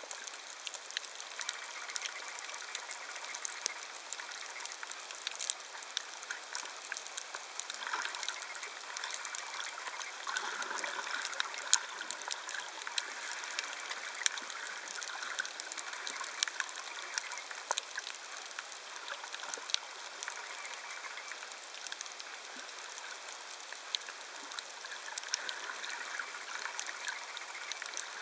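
Underwater sound over a shallow coral reef: a steady crackling hiss full of short sharp clicks, typical of snapping shrimp.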